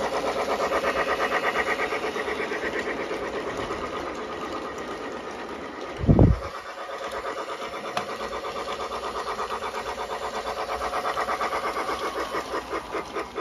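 Battery-powered toy steam locomotive running on plastic track, its motor and wheels making a fast, even, rhythmic clatter. A single short low thump about halfway through.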